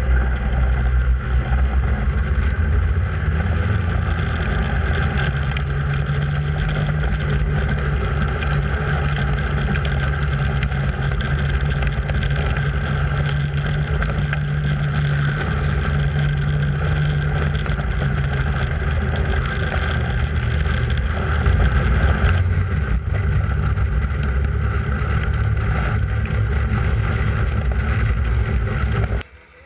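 Snowmobile engine running steadily on the move, with wind rumbling on the microphone. The sound cuts off abruptly near the end.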